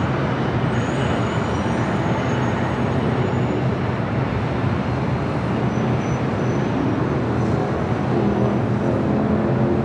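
Steady outdoor rumble of traffic noise with a low hum underneath, growing slightly louder near the end.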